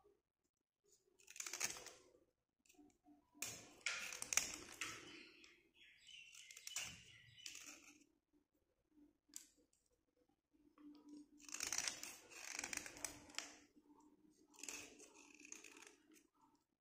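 Metal blade scraping along a slate pencil, shaving it down in about five bursts of rapid scratching strokes, each a second or two long, with short pauses between.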